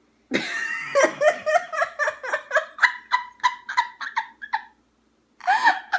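A woman laughing uncontrollably: a sudden outburst, then a long run of quick ha-ha pulses, about four a second, that breaks off briefly near the end and starts again.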